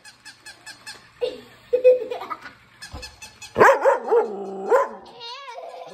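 A puppy and a larger dog play-fighting, barking and yipping. Light clicking and short yips come in the first two seconds, and the loudest run of barks comes a little past the middle.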